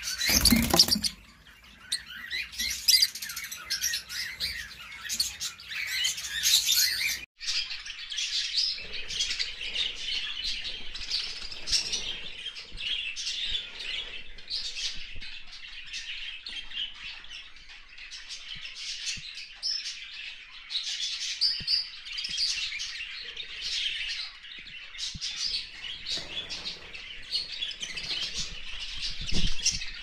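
Small cage birds chirping, many high calls overlapping: white zebra finches at first, then, after a break about seven seconds in, a flock of budgerigars chattering continuously. A brief loud thump right at the start.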